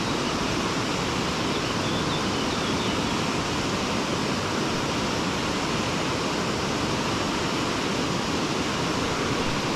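Steady rush of a fast-flowing river, running high and strong after rain.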